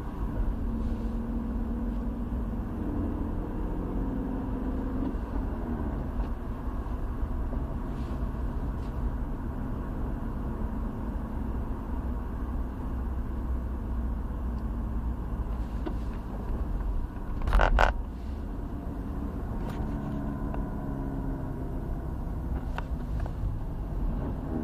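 BMW E46 318i's N42B20 2.0-litre four-cylinder engine running, with the strange noise the owner is recording it for. A brief loud burst of noise comes about two-thirds of the way through.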